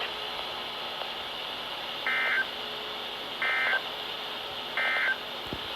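Emergency Alert System end-of-message data bursts: three identical short warbling digital tone bursts, evenly spaced about a second and a half apart, over steady broadcast hiss.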